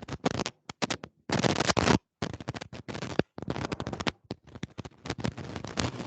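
Choppy bursts of rustling, crackling noise that cut in and out abruptly, with short gaps of dead silence between them.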